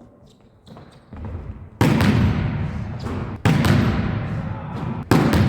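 A volleyball being struck and bouncing on a hard gym floor: three loud thuds about a second and a half apart, each with a long echo.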